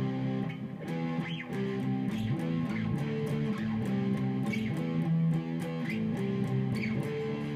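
Electric guitar played through an amplifier: picked chords in a steady rhythm, changing every half second or so as the fretting hand slides between positions on the neck.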